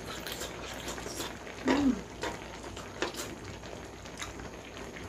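Eating sounds from a hotpot meal with noodles: scattered soft clicks and mouth sounds, with a brief murmured voice sound about two seconds in.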